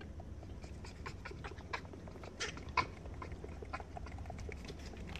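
Barbary macaques making scattered short clicking sounds, with two louder calls a little past the middle.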